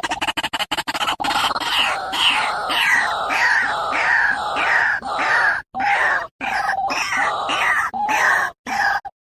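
White-breasted waterhen (ruak-ruak) calling: a rapid run of short pulses, then from about a second in loud, repeated downslurred croaking notes at about two a second. The calls break off abruptly a few times.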